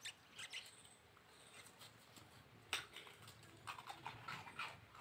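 Faint, scattered crunches and clicks, with one sharper click a little past halfway: a dog chewing and picking up biscuits from a concrete floor.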